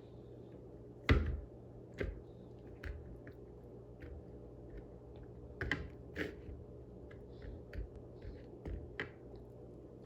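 Scattered light taps and clicks of kitchenware being handled on a counter, with one louder thump about a second in, over a faint steady hum.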